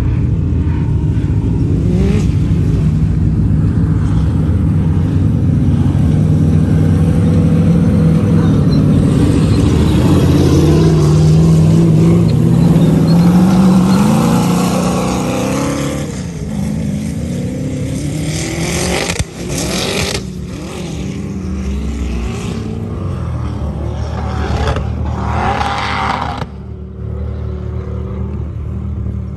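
4x4 engine revving hard under load while climbing a soft sand dune, its pitch rising steadily through the first half. About halfway the sound drops back, with a couple of sharp breaks later on.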